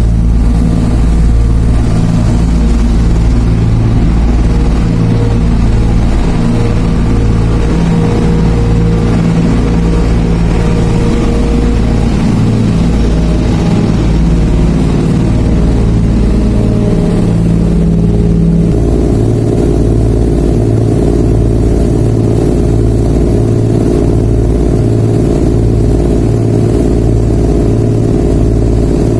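Ferry's engines running steadily under way: a loud low drone with a regular pulsing beat and a humming tone. The pitch of the hum shifts about two-thirds of the way through.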